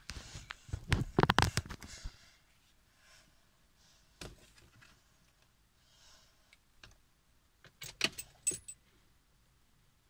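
Bunch of car keys jangling and clicking at a Citroën C4 Picasso's dashboard and ignition, in a burst of rattles during the first two seconds and again near the end, with a single click near the middle, as the service indicator is being reset.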